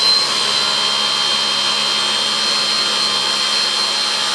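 Philips Avent SCF870 steamer-blender's motor running a blending pulse, the blade pureeing a jar of steamed fish and rice: a loud, steady high whine. Right at the end the motor is switched off and its pitch falls as it spins down.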